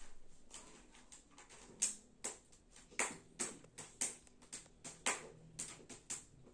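Wilted grape-vine leaves rustling and crinkling as they are handled and rolled by hand: a quick run of short rustles, about two a second, starting about two seconds in.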